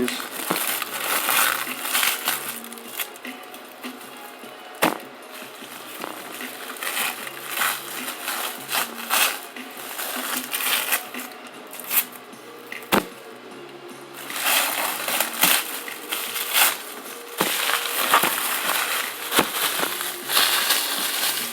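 Paper and cellophane firecracker-pack wrappers crinkling and tearing as they are unwrapped by hand, with scattered sharp taps and clicks.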